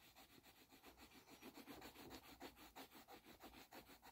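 Pencil colouring in on paper: faint, quick back-and-forth scribbling strokes, about five or six a second.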